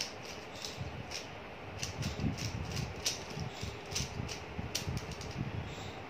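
Plastic 3x3 Rubik's cube being turned quickly by hand: irregular, rapid clicking and clacking of its layers, with soft low knocks from handling the cube.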